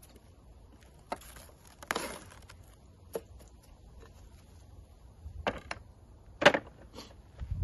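Kitchen items handled on a wooden table: a handful of separate knocks and clicks with a brief scrape about two seconds in, the sharpest knock about six and a half seconds in.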